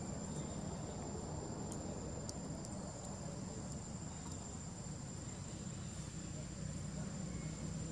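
Steady high-pitched drone of insects, with a low background rumble and a few faint ticks in the first few seconds.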